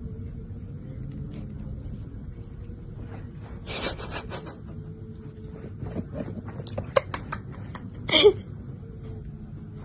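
Cat licking and nibbling at food held in a plastic-bagged hand: the plastic crinkles in short bursts, about four seconds in and again a little after eight seconds, with small sharp clicks in between.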